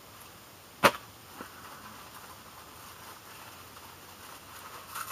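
Handling noise from a small package being worked open by hand: one sharp, loud click about a second in, a fainter click just after, then soft rustling and a small click near the end.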